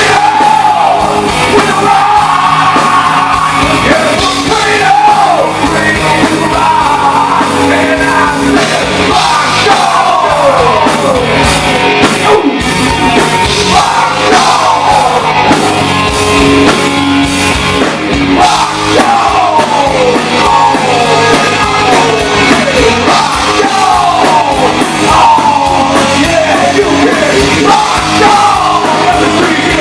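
Rock band playing loud and live, a singer yelling over distorted guitars, bass and drums.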